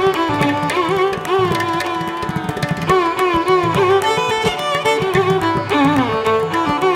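Instrumental background music in a Carnatic style: a melody of sliding, wavering notes over steady drum strokes.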